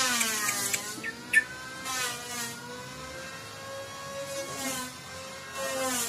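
A steady humming drone, like a small motor running, wavering slowly up and down in pitch. A few short, sharp bird calls come near the start, with one loud one about a second and a half in.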